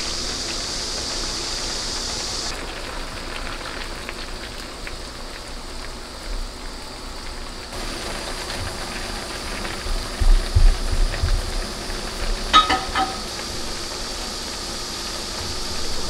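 Soy-sauce liquid boiling in a frying pan on a gas stove, with a steady bubbling hiss that is brighter for the first couple of seconds while the soy sauce is poured in. Later a wooden spoon stirs the pan, with a few soft knocks and a short clink about twelve seconds in.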